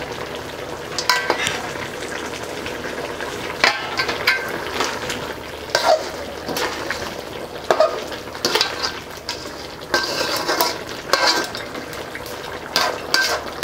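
Metal slotted spoon stirring and scraping through thick meat curry in a large aluminium pot, with irregular clinks against the pot over the steady sizzle of the hot gravy.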